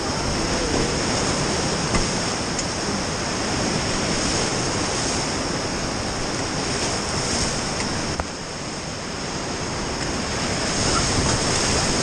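Loud, steady rush of whitewater rapids churning around an inflatable raft as it runs through them, dipping briefly in level about eight seconds in.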